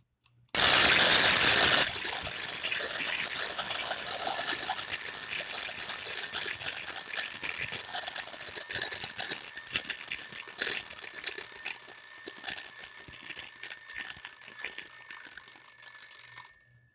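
Accurite wind-up alarm clock ringing continuously as its strike hammer runs the fully wound alarm mainspring down. The ring is loudest for the first second or so, then carries on a little softer, and cuts off shortly before the end as the spring runs fully out.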